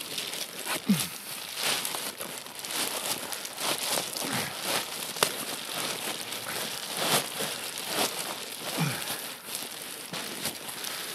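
Camping gear, sleeping bag and bivvy, being packed away: fabric rustling and crinkling in irregular handfuls. Two short low falling squeaks, about a second in and near the end.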